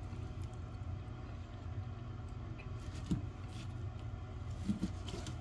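A steady low rumble, with a few faint taps from a kitchen knife slicing a grilled ribeye steak on a plastic cutting board.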